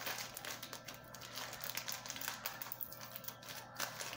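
A taped mailing package being picked open by hand: packing tape and paper crackling and crinkling in a quick, irregular run of small clicks.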